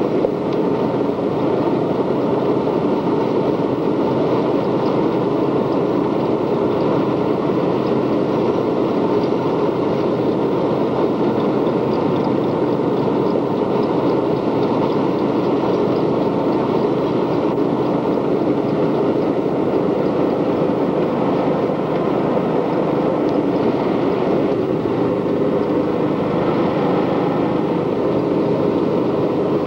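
An ATV engine running steadily while riding, mixed with a constant rushing noise that does not let up.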